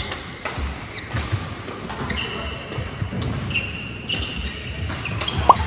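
Badminton rally: rackets striking the shuttlecock as sharp clicks every half second or so, with sports shoes squeaking on the court floor, one sharp rising squeak near the end. The hall makes it echo.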